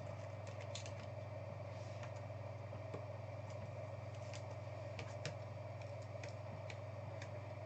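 Faint, irregular clicks of a computer keyboard being typed on, over a steady low hum.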